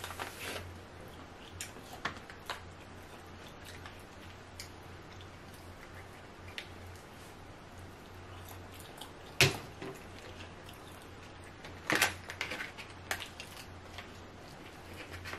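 Cooked king crab leg shell being cracked and snapped apart by hand: scattered small clicks, then two loud sharp cracks, the second followed by a quick run of smaller snaps.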